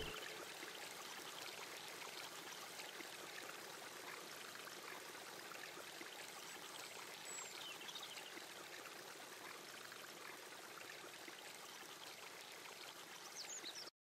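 Faint, steady rush of a small stream pouring over a low weir and splashing into the pool below.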